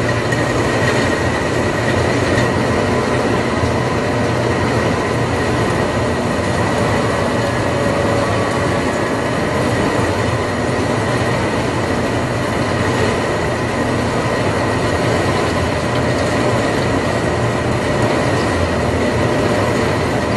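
Conveyor belts and rollers running steadily, a continuous mechanical rumble and rattle with a faint high whine held above it.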